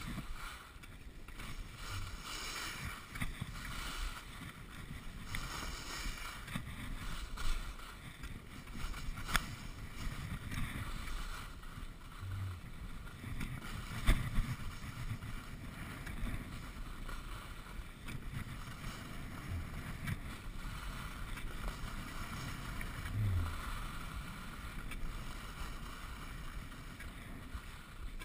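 Skis sliding and scraping over groomed snow on a downhill run, with wind rushing over the microphone. A few sharp knocks stand out, the loudest about 14 seconds in.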